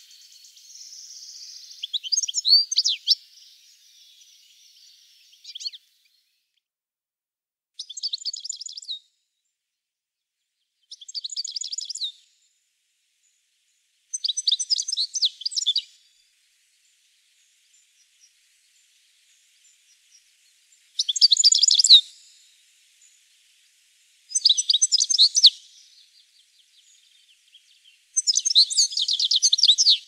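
European goldfinch singing: short bursts of rapid, high twittering notes, each a second or two long, repeated every few seconds with silent gaps between them.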